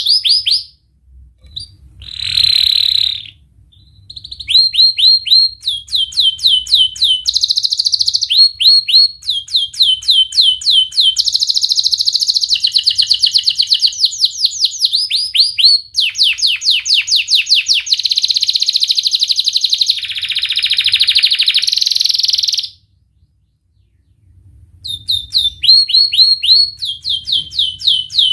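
Domestic canary in full song: fast runs of sharp, repeated downward-sweeping 'wit wit' notes, mixed with buzzier rolled phrases, broken by two short pauses.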